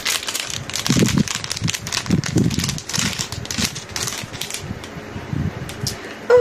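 Clear plastic jewellery packet crinkling and crackling in the hands as it is handled and torn open, a quick run of irregular clicks and rustles.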